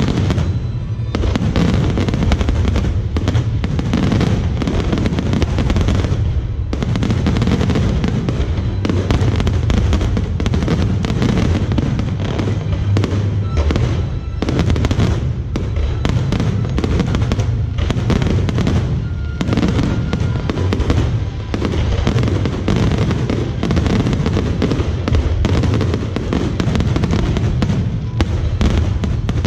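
Fireworks display: a dense, continuous barrage of bangs and crackles going off in quick succession, with music playing alongside.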